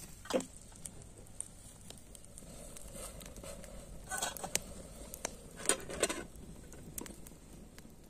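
Wood campfire crackling, with scattered sharp pops and a few louder clusters of crackle about four and six seconds in.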